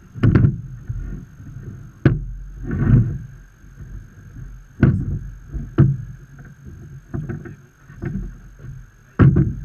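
Irregular knocks and thumps on wooden dock boards as a metal-framed, net-covered crab trap is handled and lifted, along with footfalls on the boards, about five sharp knocks in all.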